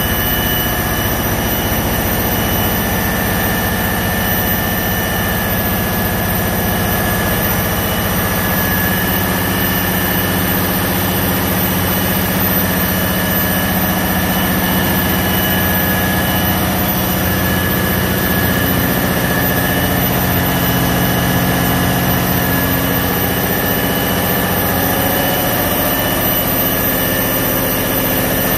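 EMD 645F7B two-stroke diesel generator engine running steadily, a loud, even machinery din with a thin steady high whine over it.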